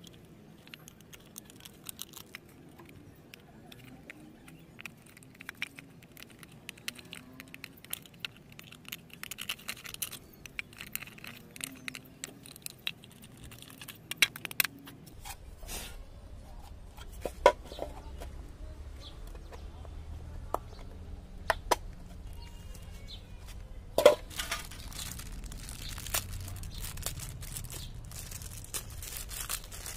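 Hands working a screwdriver and handling the plastic housing of a mixer grinder on a woven plastic sheet: many small clicks, scrapes and crinkles, with a few sharper plastic knocks in the second half. A steady low hum comes in about halfway.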